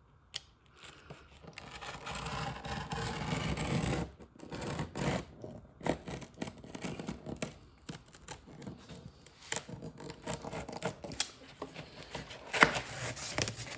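A utility knife dragging through foam camping-mat padding with a long scraping sound, then scattered clicks and knocks of handling as the cut foam pieces are worked loose.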